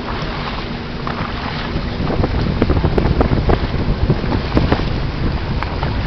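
Wind buffeting the microphone aboard a boat, over water noise. A faint low hum fades out about two seconds in, after which the gusts grow louder and more uneven, with scattered short thumps.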